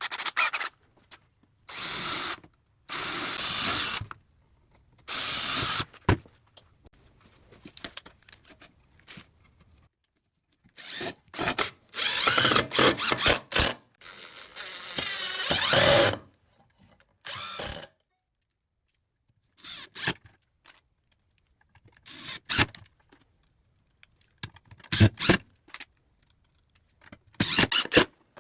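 Power drill running in repeated short bursts of about a second each, with quieter knocks and clatter between them.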